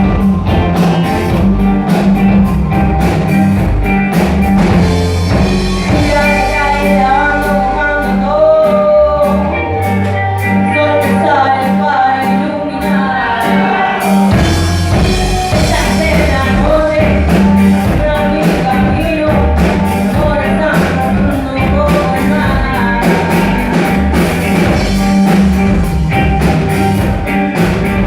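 Rock-style music with drums and a steady beat, with a sung or lead melody in the middle stretch.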